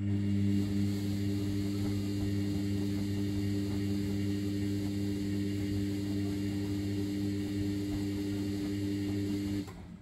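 Sharp (Vestel) ES-GFB7145W washing machine giving a steady electric hum with a faint rush of water behind it. It switches on suddenly and cuts off sharply about a second before the end.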